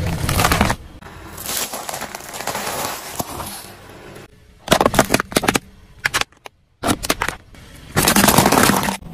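A car tyre crushing one object after another: a durian's spiky husk splitting at the start, glass marbles cracking in a quick run of sharp snaps about five seconds in, and clam shells crunching near the end.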